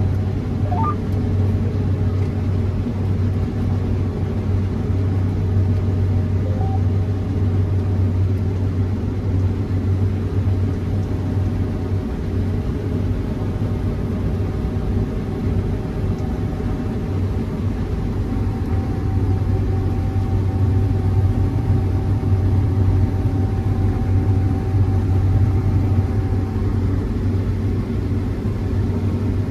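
Combine harvester running steadily while cutting durum wheat, heard from inside the cab: a constant low drone with a steady hum.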